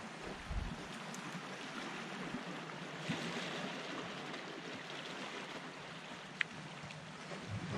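Steady wash of small sea waves on a rocky shoreline, with a short sharp tick about six and a half seconds in.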